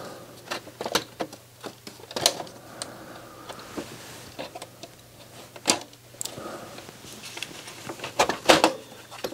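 Irregular plastic clicks and clacks of a Sony DHC-MD373 mini hi-fi's internal parts being handled and snapped back into place, with a few louder clacks near the end.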